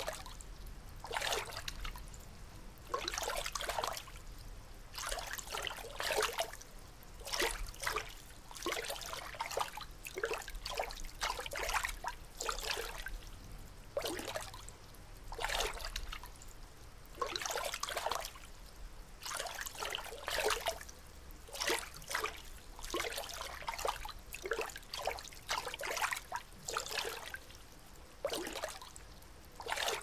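Water trickling and lapping in small irregular splashes, about one every second or so.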